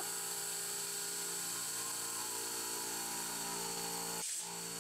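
CNC milling machine spindle driving a quarter-inch three-flute cobalt end mill as it cuts a bore in an aluminium block, with a compressed-air nozzle hissing to blow the chips clear. The sound is a steady whine over the hiss, with a brief drop-out a little after four seconds.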